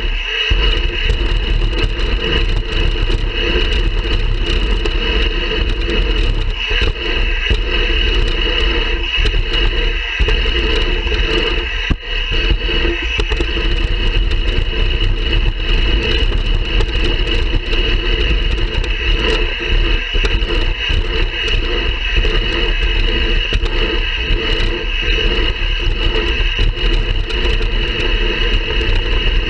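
BMX bike rolling around the track, heard from a camera carried on the bike or rider: a steady, loud rush of wind on the microphone over a low rumble of tyres on the track surface.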